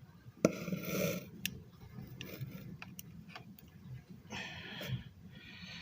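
Small model-kit parts being handled and pressed together by hand. A sharp click about half a second in is followed by a brief rustle, then a few faint, separate ticks and more soft rustling near the end.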